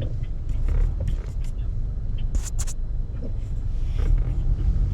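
Low, steady rumble of a car driving in city traffic, heard from inside the cabin, with two short sharp clicks about halfway through.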